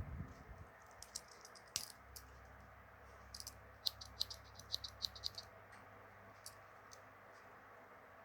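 Light metallic clicks of a Victorinox Handyman Swiss Army knife's small scissors being drawn out and worked. Scattered single clicks, with a quick run of about six a second in the middle.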